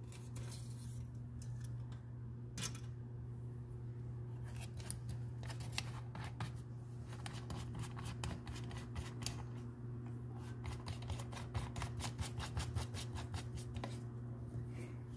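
A long run of light, sharp clicks and rattles from hands handling the metal drill bits and their tools, sparse at first and coming rapidly for a few seconds near the end, over a steady low hum.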